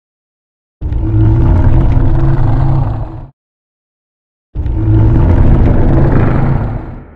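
Two loud, low, rumbling Godzilla sound effects, each lasting about two and a half seconds. The first starts a little under a second in and cuts off abruptly; the second follows after a gap of about a second and trails off near the end.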